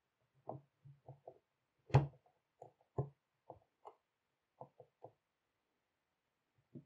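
Hard plastic figure parts knocking and clicking together as a wing piece is handled and pressed into place on a scale figure. About a dozen short, irregular knocks, the loudest about two seconds in and another strong one a second later.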